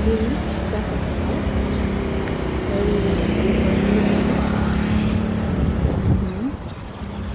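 Car engine running with a low rumble and a steady hum, its pitch rising briefly near the end.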